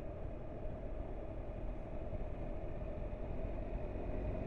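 Adventure motorcycle riding at low speed, heard from the rider's camera: a steady low engine and road rumble mixed with wind noise, growing a little louder near the end.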